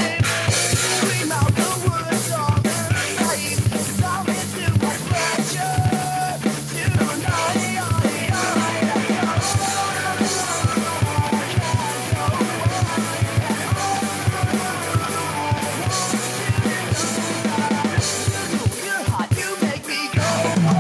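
A rock song with a sung vocal, played along to on a Yamaha DD75 digital drum pad kit, whose drum-kit sounds keep up a steady, busy beat with the track.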